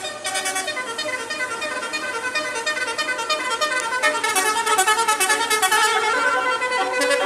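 Basuri multi-tone musical vehicle horn playing a fast melody of short, stepping notes.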